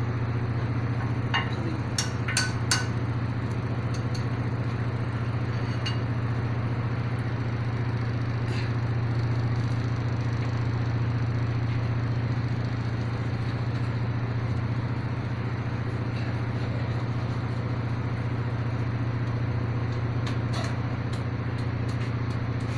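A steady low machine drone, like an engine running, with scattered sharp metallic clicks and clinks from tools and bolts on metal: a cluster a couple of seconds in and several more near the end.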